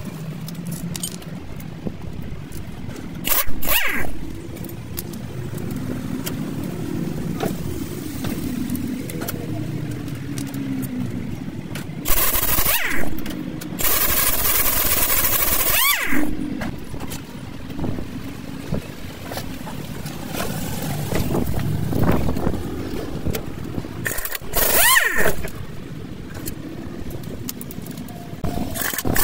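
Motor vehicle engines running, with several vehicles passing. A few seconds of loud hissing noise come in the middle.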